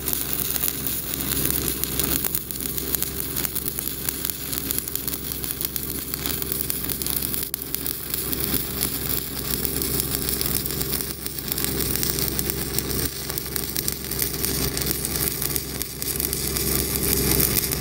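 Stick (shielded metal arc) welding with a Pipeliner LH-D low-hydrogen downhill electrode on pipe: the arc crackles and sizzles steadily as the bead runs down the side of the joint, with the arc held a little long. A steady low hum runs underneath.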